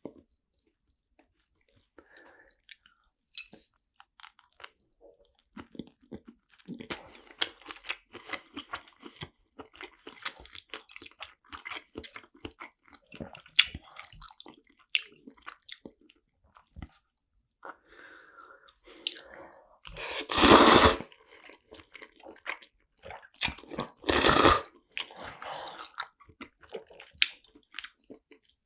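Close-miked eating of sushi: wet chewing with many small clicks. About two-thirds of the way through come two louder rushes of noise, each about a second long.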